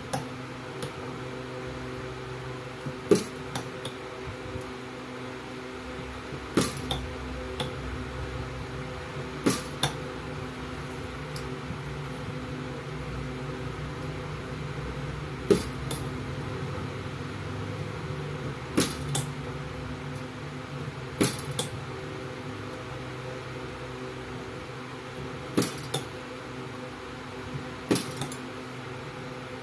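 Battery-cell spot welder firing, sharp snaps every few seconds, mostly in pairs a fraction of a second apart, over a steady electrical hum.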